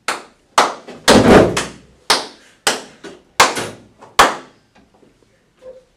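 A series of about seven sharp, loud hand claps, spaced unevenly about half a second to a second apart, with a heavier, longer smack about a second in.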